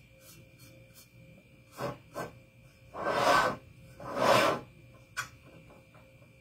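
Two rasping rubs about a second apart, each about half a second long, from hands working a paper-lined metal baking pan on a cutting mat, with a fainter rub before them and a light tap after.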